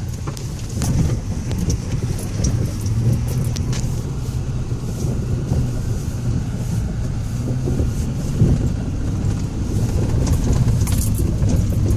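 Ford Raptor pickup crawling over a rough, rocky off-road trail, heard from inside the cab: a steady low engine and road rumble with scattered knocks and rattles as the truck jolts.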